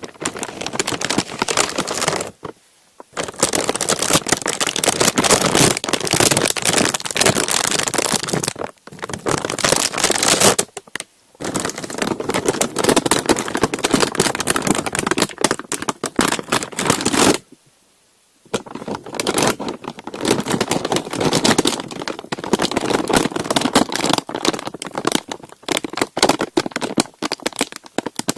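Parchment paper being crumpled and rubbed close to the microphone: a dense, loud crinkling that stops briefly about three seconds in, again near nine and eleven seconds, and for about a second near eighteen seconds.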